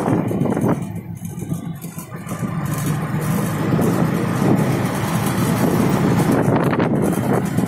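Engine of a moving road vehicle running, with tyre and wind noise. It eases off about a second in, then grows louder again.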